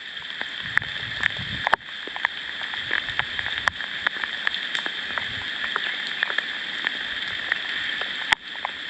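Steady rain falling, with many irregular drops tapping sharply on a surface close by.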